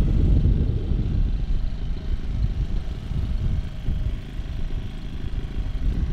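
Strong wind buffeting the microphone: a loud, uneven low rumble that gusts harder in the first couple of seconds, then eases slightly.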